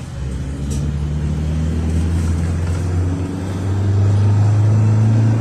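GAZelle Next minibus's Evotech 2.7-litre four-cylinder petrol engine heard from inside the cabin as it drives, a steady low drone with road noise. About three and a half seconds in the engine pulls harder, its drone growing louder and a little higher.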